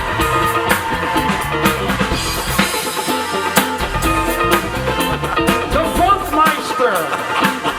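Live band music: a drum kit keeping a steady beat under other instruments.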